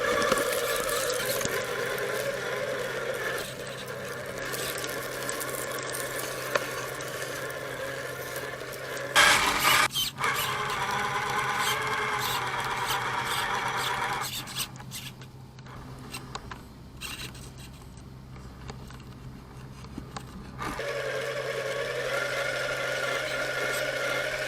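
Electric motor and geared drivetrain of a 1/10-scale RC crawler whining as it drives over desert dirt, with tyres crunching and scraping. The whine swells briefly about nine seconds in, falls away for several seconds a little past halfway, and picks up again near the end.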